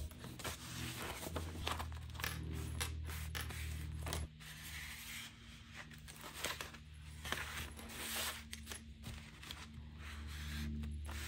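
Paper being handled on a desk: printed sheets rustling and sliding, and a plastic card scraped and tapped along a fold to crease it, giving many short scrapes and clicks.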